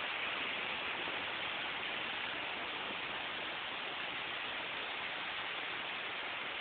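Steady, even rushing of sea surf on a beach, with no single wave break standing out.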